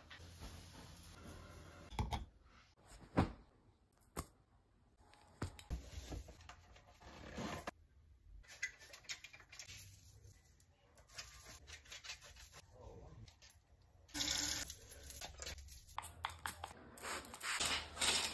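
A string of short, faint household handling sounds: rustling fabric and bedding, scrapes and scattered clicks, broken by brief gaps. The loudest, most continuous rustling comes in the last four seconds.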